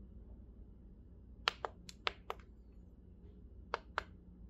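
Volume up/down buttons on an SG7 kids' alarm clock being pressed to step the hour setting for its day/night graphics. Three quick double clicks, about one and a half, two and four seconds in.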